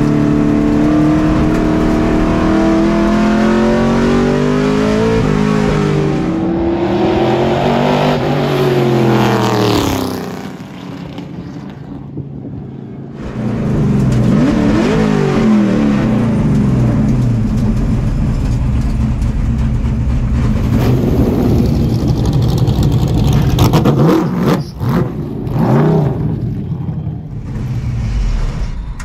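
LS-swapped V8 race truck engine heard from inside its cab at speed on track, its pitch rising and falling as it accelerates and lifts through the corners. The engine drops back for a few seconds about ten seconds in, then pulls hard again, and near the end it turns choppy and uneven as the truck slows off the track.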